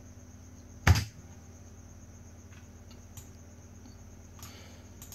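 Clicks of a computer mouse while editing: one sharp click about a second in, then a few faint clicks, over a steady low electrical hum from the recording setup.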